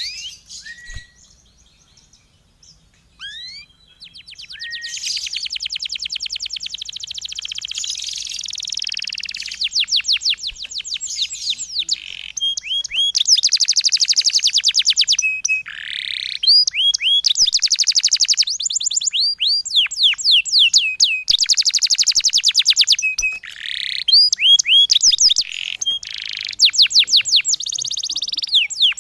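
Small songbird singing 'tembakan', the rapid-fire trills used as master song for training pleci (white-eyes): a few short rising whistles, then from about five seconds long, very fast runs of sharp falling high notes, broken by short pauses.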